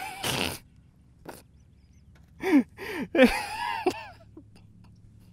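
A man's wordless vocal reactions while fighting a hooked fish: short grunts and gasps, then a longer wavering cry about three seconds in. A single sharp click comes near the end of the cry.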